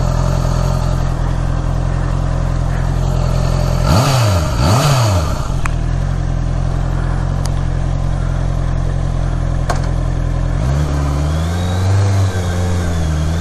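Honda CBR650R's inline-four engine idling steadily, blipped twice in quick succession about four and five seconds in. From about ten seconds in the engine note steps up and wavers as the bike moves off at low revs.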